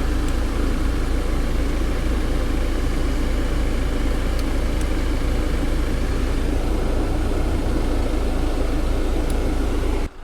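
A 2015 Jeep Cherokee's ventilation blower running at full speed on recirculation with the engine idling: a steady rush of air over a low hum, with a few faint ticks. The sound drops out abruptly at the very end.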